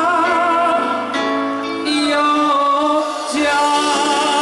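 Live band playing a Javanese pop song through a large concert PA, with a male singer holding long, wavering notes.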